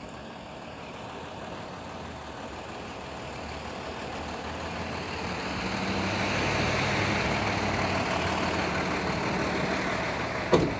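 A motor vehicle on the street, its engine and tyres growing louder to a peak about two-thirds of the way through, then fading as it passes. A short sharp knock just before the end.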